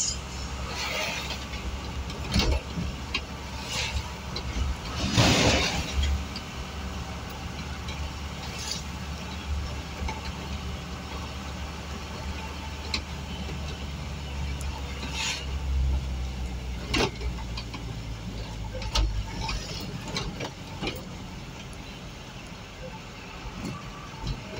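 Vehicle engine running steadily, heard from inside the cab while driving, with road noise and occasional sharp knocks over a rough road. About five seconds in, a louder rush of noise as an oncoming truck passes close by.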